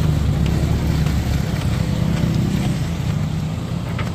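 A large vehicle's engine running with a steady low drone that weakens after about a second and a half.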